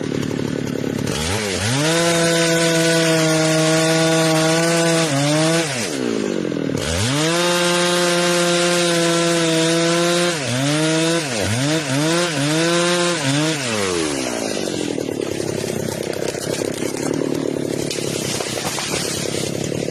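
Chainsaw engine idling, then held at full throttle for about four seconds while cutting wood, dropping back, and running high again for about three seconds. A few quick throttle blips follow, then it settles back to a steady idle for the last six seconds.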